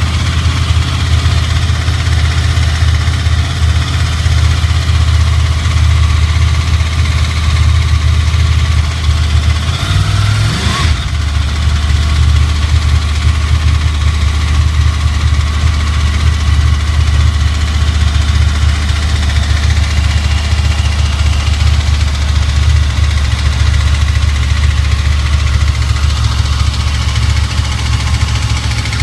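Honda VFR800 V4 motorcycle engine idling steadily, with a brief rev that rises and falls about ten seconds in. The engine is below 65 °C and making the strange noise its owner hears only while it is warming up.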